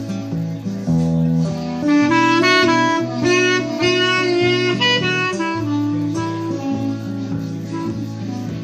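A clarinet plays a melodic lead line over a strummed acoustic guitar, with a quick run of higher notes in the middle.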